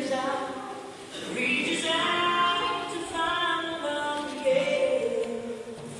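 A group of young voices singing a song together, with little or no instrumental backing.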